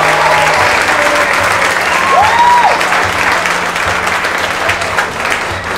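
Wedding guests applauding, dense clapping with a single cheering call about two seconds in, easing slightly toward the end.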